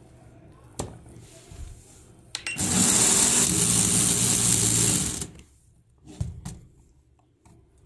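Lego V16 engine and gearbox model driven by its electric motor on 15 volts from a bench power supply: a loud, steady whir of the motor and plastic gears and pistons running fast, starting about two and a half seconds in and cutting off about five seconds in. A few sharp plastic clicks before and after.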